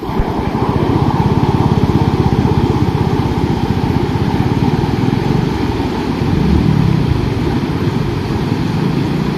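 Floodwater rushing over a submerged road culvert, a loud, steady, deep rushing sound of a river in spate.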